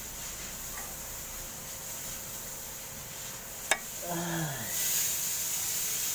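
Steady hiss, with one sharp click a little over halfway through, then a short sound falling in pitch and close rustling as the worker reaches into the engine compartment with a tool.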